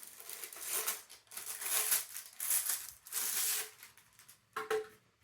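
Plastic packaging rustling and crinkling in several short bursts as vacuum accessories are handled and pulled from their bags.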